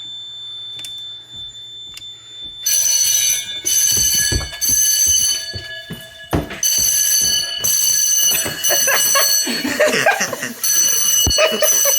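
A faint steady tone with regular light ticking, then about three seconds in fire alarm bells start ringing loudly, keeping on with brief drops in level.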